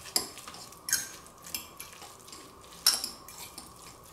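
Metal fork stirring a shrimp salad in a ceramic bowl: irregular clinks and scrapes of the tines against the bowl's sides and bottom, the sharpest about three seconds in.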